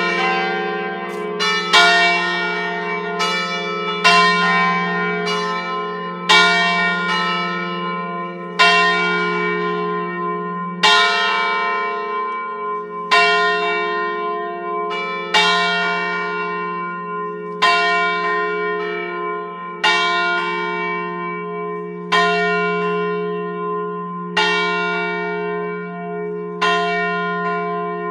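Five church bells in F3, hung in the Ambrosian system, ringing a programmed festive peal (concerto solenne). The strikes come roughly once a second, stronger ones about every two seconds, each ringing on and overlapping the next over a steady low hum.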